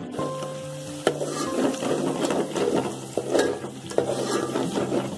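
Ginger-garlic paste sizzling and crackling in hot oil in a steel pot while a spoon stirs it, with a few sharp clicks of the spoon against the pot.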